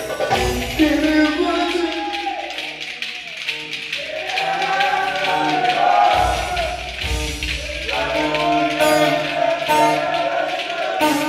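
Live Ankara oyun havası folk dance music: a pitched melody line moving over a steady percussion beat.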